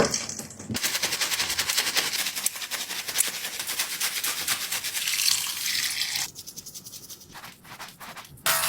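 Squishy toy being cleaned: a dense, fast crackling of tiny clicks and squelches that thins out about six seconds in to a few scattered clicks.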